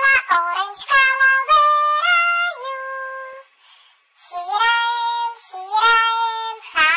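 Children's nursery-rhyme song sung in a high voice, two sung phrases with a short break about three and a half seconds in.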